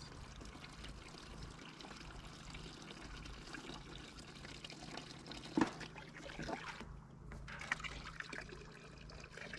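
Water trickling and pouring steadily at a low level, with a couple of brief knocks partway through.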